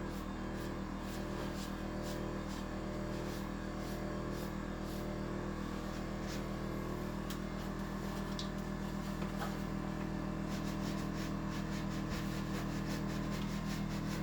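A power tool's electric motor running steadily at one speed, with a constant hum.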